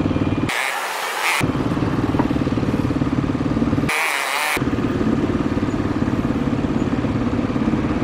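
Motorcycle engine running steadily at low speed while creeping along in stop-and-go traffic, with an even pulsing note. Twice the engine note drops out briefly, about half a second in and about four seconds in, and a hiss takes its place.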